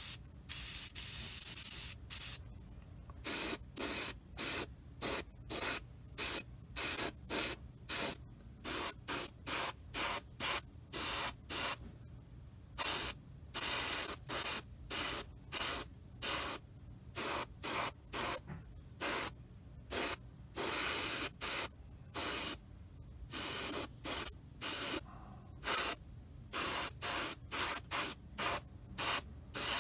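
Airbrush spraying paint in short hissing bursts as the trigger is pulsed on and off, roughly one or two bursts a second, after one longer burst at the start.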